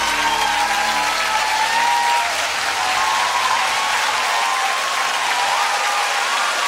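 Theatre audience applauding and cheering at the end of a song, with the band's last held chord dying away about two seconds in.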